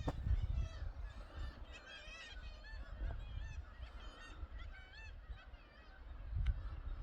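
Clifftop seabird colony calling: many birds at once, their harsh calls overlapping in a continuous chorus, busiest in the middle.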